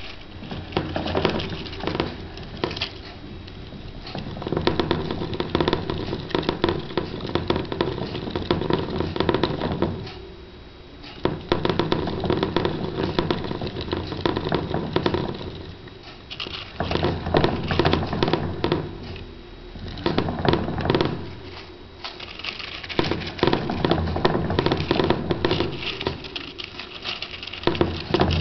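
Clear plastic hamster wheel spun fast by Roborovski dwarf hamsters, giving a rapid, steady rattling whir from the wheel on its axle. It slackens briefly three times as the running slows, then picks up again.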